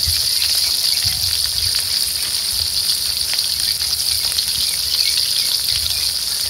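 Whole fish frying in hot oil in a wok: a steady sizzle with scattered small pops and crackles.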